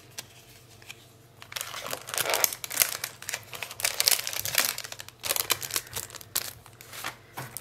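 Paper die-cut stickers and plastic-sleeved sticker sheets rustling and crinkling as hands sort through them. Quiet at first, then irregular rustles start about a second and a half in.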